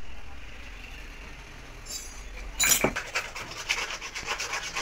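A hand tool scraping rapidly against the top of a lead-acid truck battery, about five or six short strokes a second, after a single loud knock a little past halfway in.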